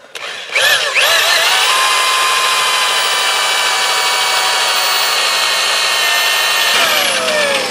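Big corded electric drill with a 1¼-inch bit boring into a bowling ball. The motor spins up with a rising whine about half a second in, runs at a steady pitch under load, and winds down with a falling whine near the end.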